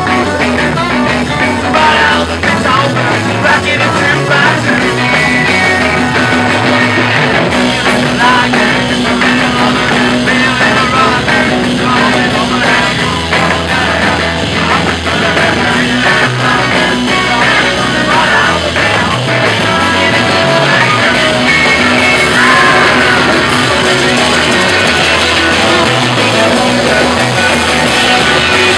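Rock and roll band playing live, with electric guitar, bass guitar and acoustic guitar under a strong beat, and singing into microphones.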